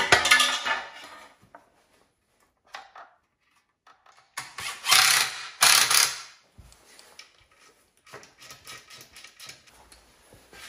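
Hand-work on a motorcycle frame: metal parts and fasteners clinking and scraping as a part is fitted, with a louder clatter about halfway through and a run of light, quick clicks near the end.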